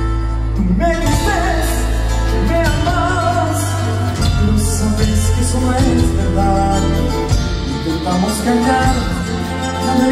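Bolivian folk band playing live: guitars over a steady bass, with a wavering melody line on top.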